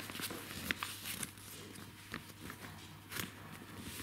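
Sheet of paper being folded and creased by hand: faint rustling with scattered small crinkles and taps.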